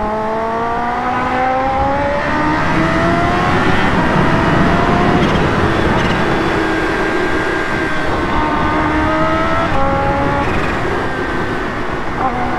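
Kawasaki Ninja H2's supercharged inline-four engine accelerating hard under full throttle. Its pitch climbs steadily, drops at an upshift about five seconds in and again about ten seconds in, then climbs once more.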